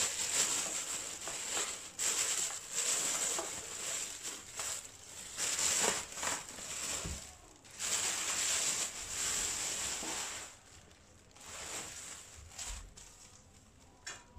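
Clear plastic bag crinkling and rustling in irregular bursts as it is pulled and bunched off a boxed speaker, quieter and sparser in the last few seconds.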